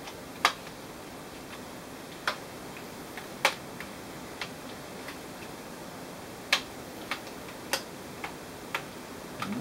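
Sharp, irregular clicks and taps of the HP G60 laptop's plastic case being probed and pried at by hand, about ten in all, over a steady faint hiss.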